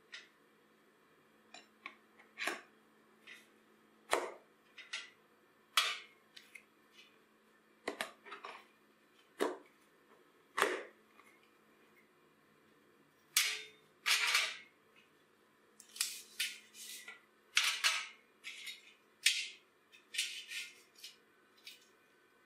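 Steel parts handled on a slatted steel workbench: irregular clinks and knocks as a steel rod axle and a square steel tube are set down and moved, with a few short scraping sounds in the second half.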